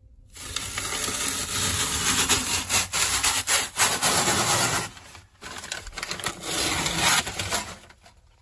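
Peel ply being ripped off cured epoxy fibreglass laminate: a long, crackling tearing noise in two pulls, with a short break about five seconds in.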